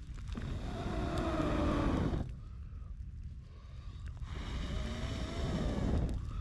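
Kettle on a campfire coming to the boil: two surges of rushing, bubbling noise, each with a faint wavering tone, a few seconds apart.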